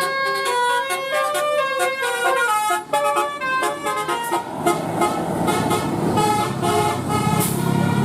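A bus's Basuri 'telolet' musical horn playing a quick tune of stepped notes. About halfway through, the engine and road noise of the passing bus rises under it.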